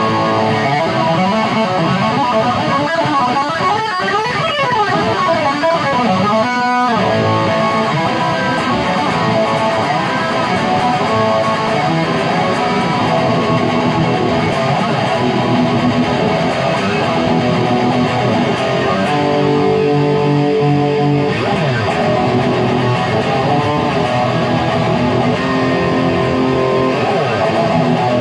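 Loud overdriven electric guitar played through a Ceriatone One perCentaur (Klon Centaur-style overdrive pedal) with the treble and output fully up, strumming chords and riffs into a Ceriatone amp and cabinet. A quick glide in pitch comes about seven seconds in.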